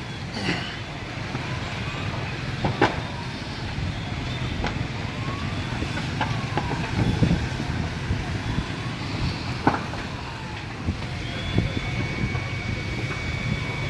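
Steady rumble of road traffic, broken by three sharp cracks spread through it. A thin, steady high tone sets in near the end.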